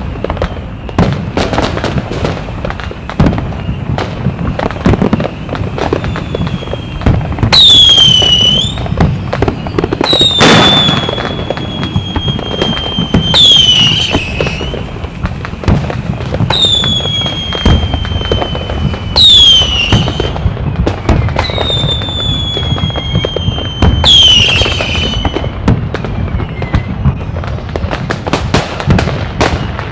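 Fireworks going off continuously: a dense crackle of sharp pops and bangs, cut through about six times by high whistling fireworks, some whistles held for a couple of seconds and sliding slightly down in pitch, others sweeping sharply upward. The whistles are the loudest moments.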